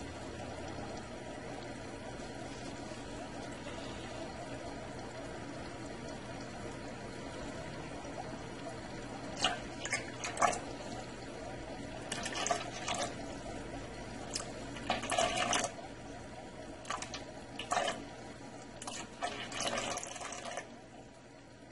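Aquarium gravel siphon drawing water and substrate: a steady rush of running water, joined from about halfway by a series of short sharp bursts of noise as soil granules are stirred up into the bell. The sound drops away near the end.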